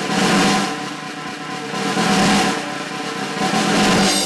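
Closing theme music with snare drum rolls over held notes, the drum swelling about every two seconds.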